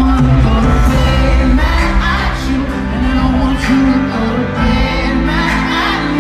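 Live R&B concert music: a male singer singing into a microphone over a band, loud through an arena sound system and recorded from the stands.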